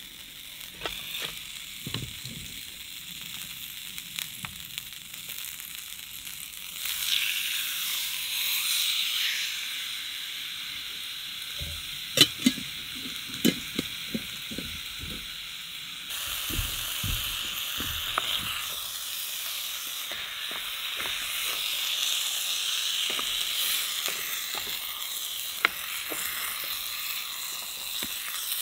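Meat sizzling in hot fat in a steel frying pan over a small wood-burning camp stove. The sizzle grows louder about seven seconds in and again about sixteen seconds in, with a few sharp clinks of utensils on the pan around the middle.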